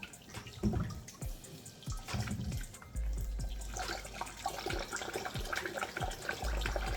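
Water splashing and sloshing as a potato is scrubbed clean by hand in washing water, with irregular splashes that grow busier about four seconds in.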